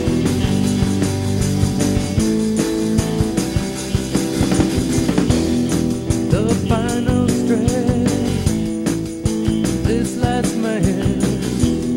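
Rock music with guitar and drums and a steady beat; a singing voice comes in about six seconds in.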